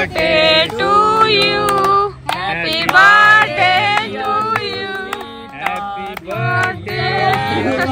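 A song with a woman's singing voice over musical accompaniment, the melody held on long notes with bending pitch.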